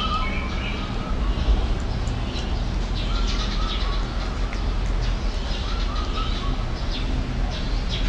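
Short chirping calls every few seconds over a steady low rumble.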